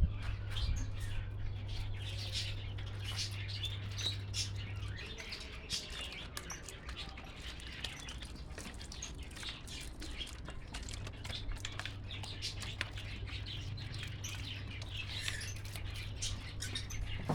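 Budgies and lovebirds chirping and chattering continuously, many short overlapping high calls with the odd squawk. A steady low hum runs under them for the first few seconds, stops, and comes back past the halfway point.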